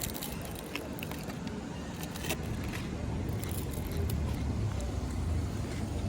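Low, steady rumble of a road vehicle running, growing a little louder about four seconds in, with scattered light clicks and jingles.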